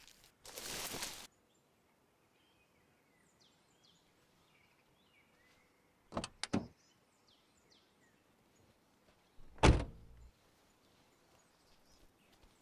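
A car door is opened with two sharp latch clicks about six seconds in, then slammed shut about ten seconds in with a loud, deep thud, the loudest sound. Near the start there is a short burst of rustling in dry grass, and faint bird chirps in between.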